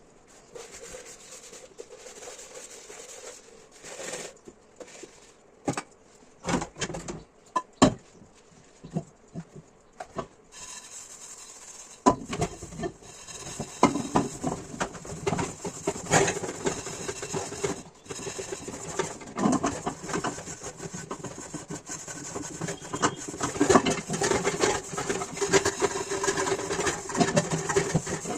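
Dishes clinking and knocking as they are handled and washed by hand, at first as scattered knocks. About ten seconds in a steady hiss of running tap water starts, and the clatter of dishes becomes dense and continuous under it.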